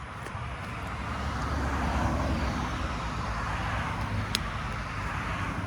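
A car passing close by on the road, its tyre and engine noise swelling to a peak about two seconds in and then fading away, with no horn. A single sharp click sounds near the end.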